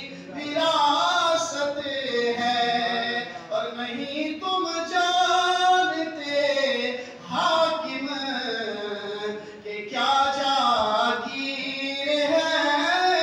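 A man's voice singing an Urdu manqabat, a devotional praise poem, into a microphone. It comes in several long melodic phrases of held, wavering notes, with short breaks for breath between them.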